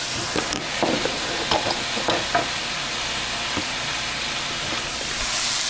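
Kale dressed with coconut vinegar sizzling steadily in a hot pan on a gas stove. A few light knocks and clicks come in the first couple of seconds.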